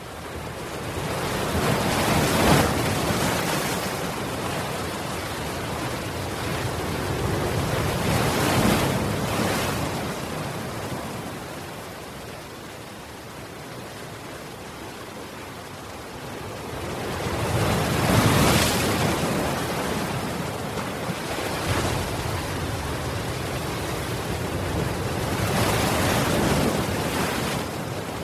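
Ocean surf breaking against a seawall and washing back over the promenade: a steady rush of water that swells loud four times, several seconds apart, as the bigger waves crash.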